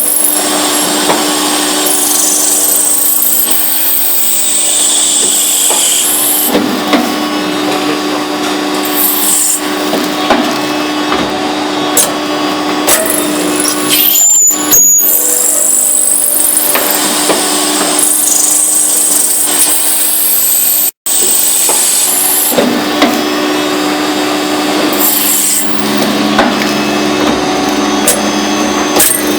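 Industrial machine tool running under load: a steady mechanical hum with cutting and scraping noise, rising high whines now and then, and scattered clicks. The sound cuts out for an instant about two-thirds of the way through.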